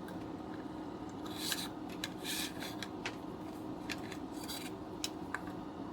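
Cutters snipping through a sewing machine pedal's electrical cable: a series of short, crisp cuts and clicks spread over a few seconds, to remove the damaged end before the loop.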